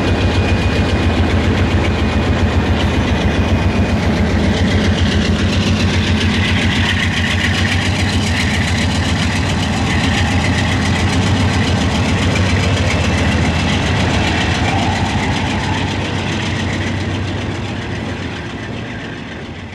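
Norfolk Southern diesel-electric locomotives running close by: a heavy, steady engine rumble with a fast even throb, fading out near the end.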